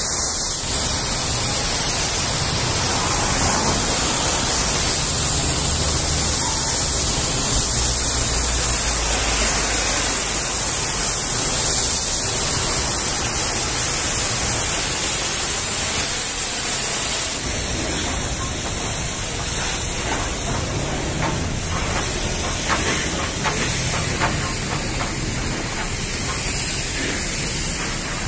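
High-pressure water jet from a pressure-washer lance hissing steadily as it sprays against the metal rear doors of a semi-trailer. About two-thirds of the way through, the spray gets a little quieter and more uneven.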